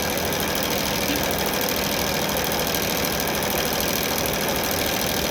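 Rothenberger R-650 drum drain-cleaning machine running steadily, its motor spinning the cable in the drain line, with a fast, even rattle.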